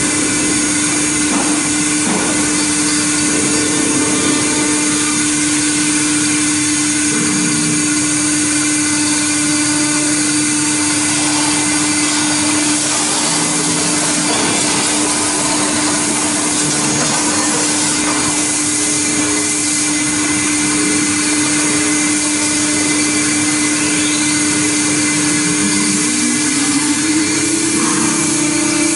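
CNC router spindle running steadily as it mills aluminium letters: a constant whine over a broad cutting hiss, with a short rising glide in pitch near the end.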